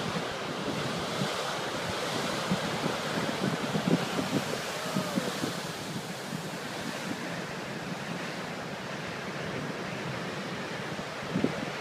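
Ocean surf breaking and washing over a rocky shore: a steady rushing hiss of waves. Wind buffets the microphone in gusts, most about three to five seconds in and again near the end.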